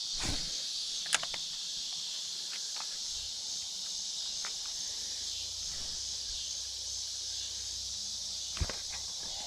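Steady chorus of insects, an even high buzz, with two sharp clicks, one about a second in and one near the end.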